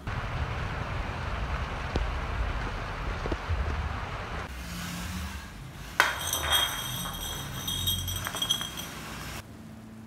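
Water splashing and pouring for the first few seconds. About six seconds in, a glass bottle strikes the floor with a sharp clink and then rings and clinks again several times.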